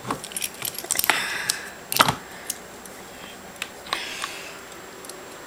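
A bunch of keys jingling, with small metal clicks against a padlock as a key is worked into it. The clicking comes in quick clusters, the loudest sharp click about two seconds in, then a few scattered ticks.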